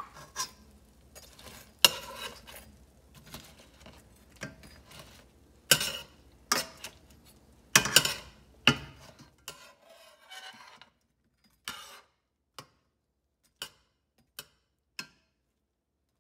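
Metal spatula scraping and clacking against a stainless steel frying pan as fried chicken wings are tossed in the sauce. The clacks are irregular and strongest in the first nine seconds, then give way to a few light, separate ticks.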